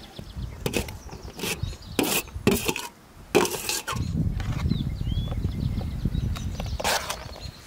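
A slotted metal skimmer scraping and clinking against large aluminium trays as fried onion and tomato are scooped off onto layered rice, about half a dozen sharp strokes with one longer scrape in the middle. A bird chirps faintly twice.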